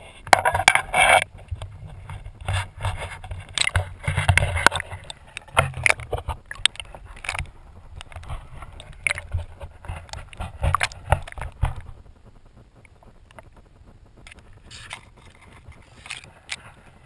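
Handling noise of a camera being dunked and held underwater: irregular knocks and scrapes over a low rumble. It goes much quieter about twelve seconds in, leaving only a few faint clicks.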